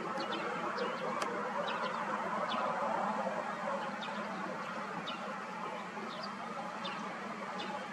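Jet engines of a taxiing Airbus A320 running at low thrust, a steady hum, with small birds chirping over it in many short, high chirps.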